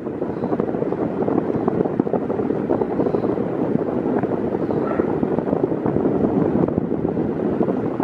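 Britânia Turbo B400 40 cm electric fan running at its lowest speed: a steady rush of air from the blades, buffeting a microphone held close in the airflow.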